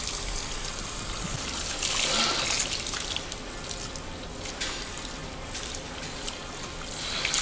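Water from a salon shower sprayer running through long hair and splashing and trickling into a ceramic backwash basin as the hair is rinsed, a little louder for a moment about two seconds in.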